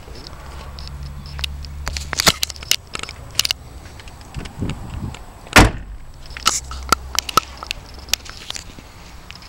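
BMW X5 doors being handled: a run of clicks and knocks, with one heavy thump about halfway through as a door shuts.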